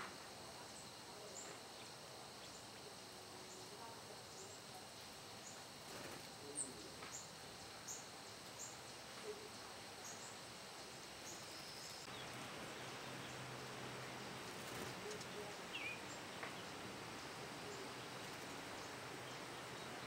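Faint outdoor ambience with a steady hiss and scattered short, very high-pitched bird chirps, more of them in the first half; the background shifts slightly past the middle, and a few lower chirps come later.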